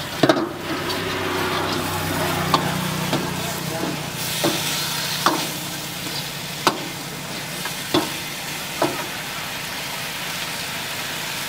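Chicken masala sizzling in a black metal kadai while a long-handled metal ladle stirs and tosses it. The ladle strikes the pan with a sharp clank every second or two, loudest just after the start.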